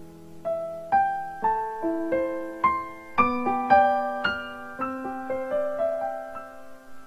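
Background piano music: a slow melody of single struck notes, about two a second, over held lower notes. It begins about half a second in, as a fading chord dies away.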